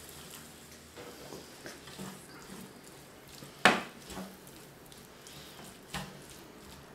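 Wooden spatula stirring a creamy tuna, pea and pepper filling in a frying pan, quiet scraping with a sharp knock about halfway through and a lighter one near the end.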